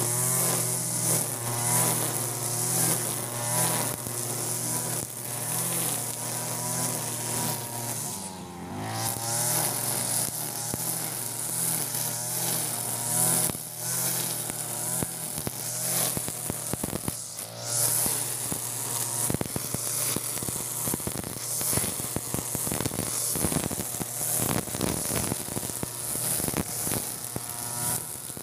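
Europa Hilt EH4300 (TB43-type) two-stroke brush cutter running at high revs, its pitch wavering up and down as the 2.4 mm nylon-line trimmer head whips through thick grass, with a steady hiss from the line. It dips briefly once, about a third of the way in.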